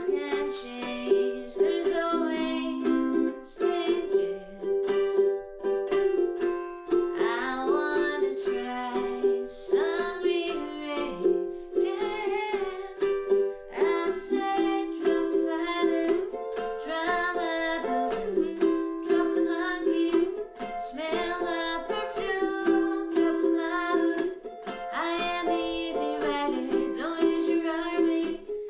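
Ukulele strummed in a steady, upbeat rhythm, playing a simple C, F and G chord progression.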